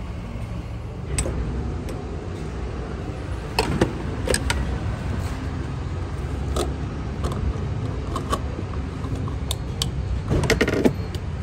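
Gas pump nozzle handled at a car's filler neck, hung back in its holder, and the car's fuel door pushed shut, giving a series of plastic and metal clicks and clunks. The loudest clatter comes near the end. A steady low rumble runs underneath.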